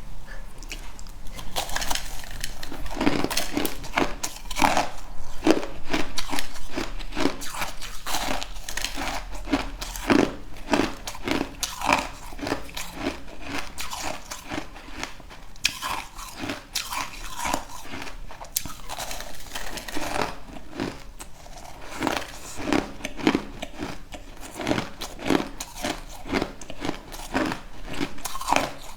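A person biting and chewing crunchy food, with many sharp, irregular crunches, several a second throughout.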